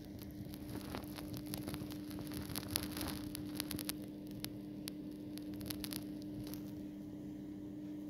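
A steady low electrical hum, with scattered faint clicks and crackles of a phone being handled as it moves around.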